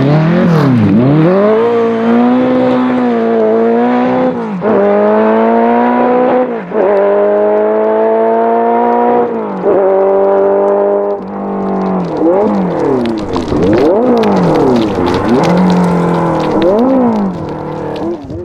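Ferrari 308 GTB rally car's 2.9-litre 90° V8 accelerating hard and loud, climbing in pitch through the gears with three upshifts. Near the end the revs swing sharply up and down several times before the sound fades out.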